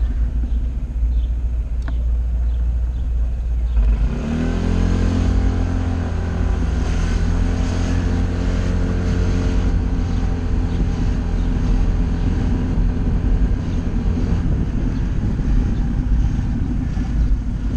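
Honda SH 125i scooter's single-cylinder four-stroke engine running under way, with a low rumble underneath. About four seconds in it picks up, the engine note rising as the scooter accelerates, then holds steady at cruising speed.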